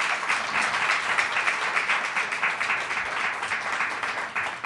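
Applause: many hands clapping in a dense, steady patter that tails off near the end.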